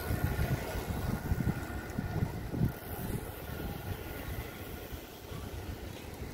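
Wind buffeting the microphone while riding a bicycle: an uneven low rumble that rises and falls from moment to moment.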